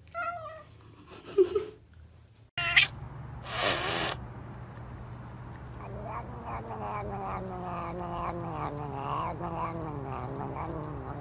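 A cat gives a long, drawn-out yowl, its pitch wavering and slowly falling through the second half, from a long-haired colourpoint cat having its chin rubbed by a finger. Before it come a brief falling call, a few sharp knocks and a short hissing noise.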